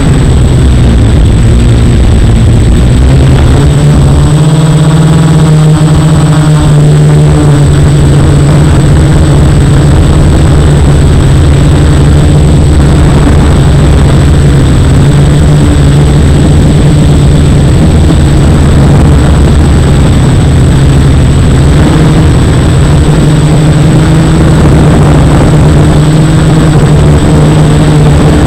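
F450 quadcopter's four brushless motors and propellers buzzing loudly in flight, the pitch wavering up and down a few seconds in as the throttle changes, then holding steady.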